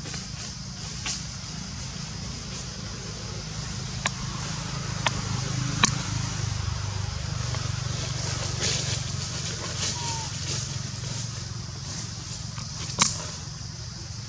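Outdoor ambience of a steady low rumble and a steady high hiss, broken by a few sharp crackles of dry leaves. The loudest crackle comes near the end.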